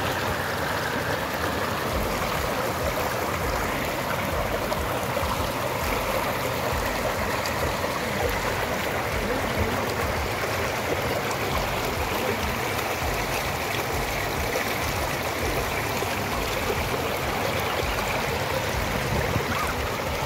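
Water running and splashing over rocks in a shallow rocky stream cascade, a steady rushing sound.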